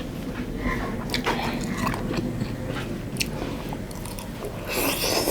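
Close-miked mukbang eating sounds: a person chewing and biting food with wet mouth clicks and smacks, and a louder crunchy, rustling burst near the end.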